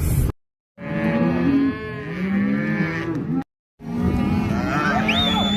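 A herd of cattle mooing, several animals calling at once with overlapping low moos, broken twice by brief silences.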